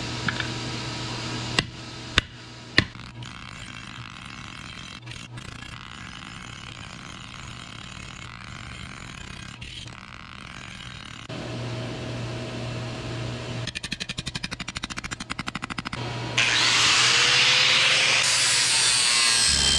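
A few hammer blows ring on hot steel on an anvil about two seconds in, over a steady low hum. Near the end a handheld angle grinder runs loudly, grinding on steel.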